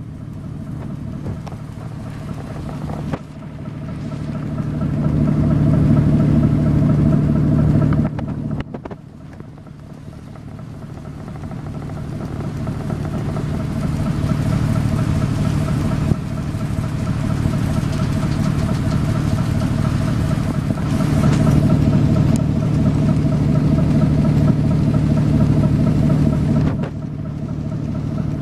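Three-cylinder Wichmann 3ACA two-stroke diesel engine of a wooden boat running steadily under way, a low throb with a steady hum above it. It grows louder for a few seconds twice, about a quarter of the way in and again near the end.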